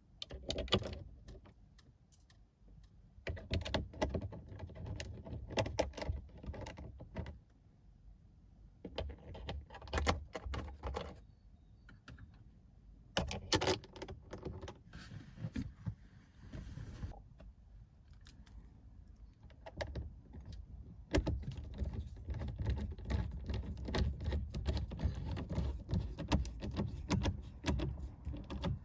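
Hand-tool work fitting a car dashboard center speaker: bursts of rapid clicking and rattling from the screwdriver, screws and plastic parts, with quieter pauses between bursts and the longest run near the end.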